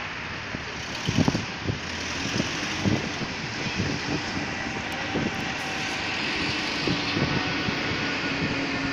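Traffic noise of a city street, with a vehicle's engine hum and the passing wash of cars. A few low thumps stand out, the loudest about a second in.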